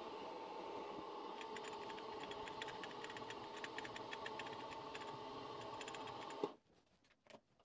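Hobby milling machine running a face mill across a metal block: a steady motor whine with light, irregular ticking from the cutter and chips starting about a second and a half in. The sound cuts off suddenly near the end, followed by a few faint clicks.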